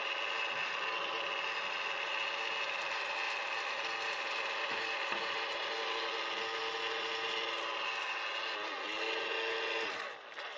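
Small motor and fan salvaged from a hair dryer, running in a homemade vacuum cleaner with a steady high whine as it sucks up dirt. Near the end the pitch sags and the sound cuts out for a moment before picking up again.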